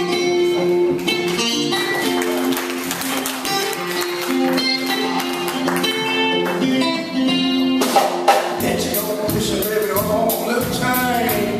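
Live blues played by a trio: acoustic guitar picking over electric bass, with drums and a singing voice coming in about eight seconds in.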